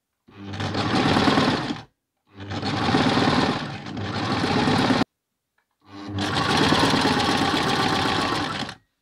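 Electric domestic sewing machine stitching in three runs with short pauses between, each run picking up speed as it starts; the second slows briefly midway and then stops abruptly.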